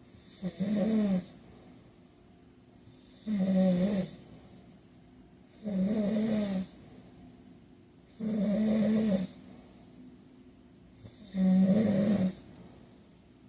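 A man snoring in his sleep with a steady rhythm: five loud snores, each about a second long, one roughly every two and a half seconds, with quiet gaps between breaths.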